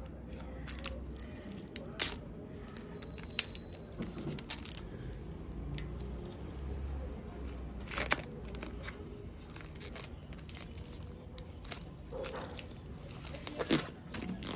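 Clear plastic top layer being peeled off paint protection film on a motorcycle fuel tank, crackling with scattered sharp clicks; a few louder snaps about two seconds in, near the middle and near the end.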